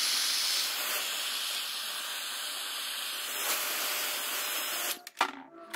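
Heat gun blowing a steady hiss of hot air to soften the end of a clear braided vinyl hose before it is pushed onto a fitting. It cuts off about five seconds in, followed by a few light clicks.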